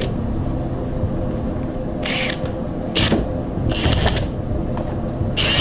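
Milwaukee Fuel cordless impact wrench run in several short bursts, with a longer one near the end, driving a starter mounting bolt in through a long extension.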